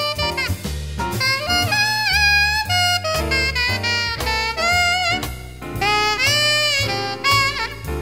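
Jazz quintet recording: an alto saxophone plays a melodic line with bent and sliding notes over bass and drums.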